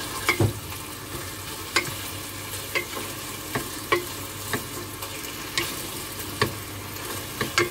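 Chicken pieces sizzling in oil in a stone-coated pot while a wooden spatula turns them, knocking and scraping against the pot about ten times.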